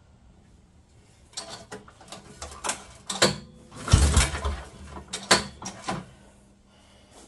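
Handling noises as a hand works the snowmobile's fuel line and rubber primer bulb on the gas tank: a run of scrapes, rustles and knocks, with a heavier thump about four seconds in. The engine is not running.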